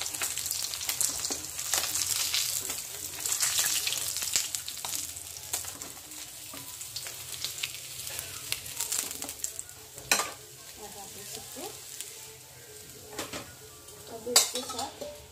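Bata fish pieces sizzling and crackling in hot oil in a steel kadai, with a metal spatula scraping the pan as the fried fish is lifted out. The sizzle thins once the pan is nearly empty, and two sharp metal knocks come about ten and fourteen seconds in.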